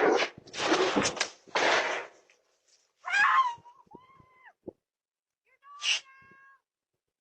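A dog barking three times, then two meows from a cat: the first bends in pitch, the second is shorter and held steady.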